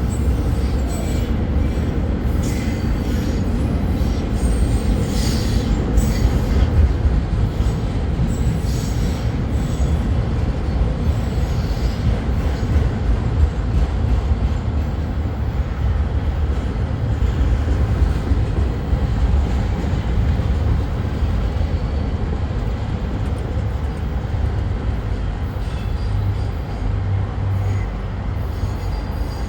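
Intermodal freight train's railcars rolling past, with a steady loud rumble of steel wheels on rail and high wheel squeal in the first ten seconds or so.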